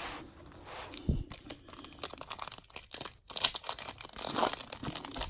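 Foil trading-card pack wrapper being torn and crinkled in the hands, in irregular scratchy bursts that thicken about two seconds in.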